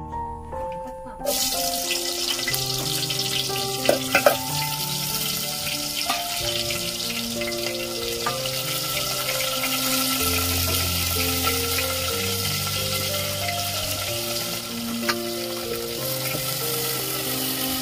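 Hot cooking oil sizzling hard in a metal pot, starting suddenly about a second in as ingredients go into it, with a few sharp knocks around four seconds. Background music with steady melodic notes plays underneath.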